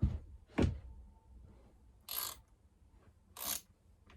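Two dull knocks, then two short rasping, ratchety strokes about a second and a half apart, from working a rubber anti-vibration mount onto its threaded bolt in a chainsaw handlebar.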